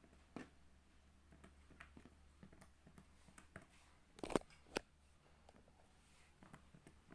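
Homemade milky slime handled by hand, giving scattered soft clicks and pops, with two louder pops about four seconds in.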